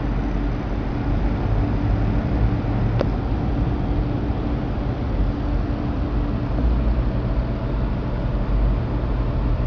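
Miniature Stirling engine model running steadily in a toy tracked tank, a continuous low mechanical hum, with one sharp click about three seconds in.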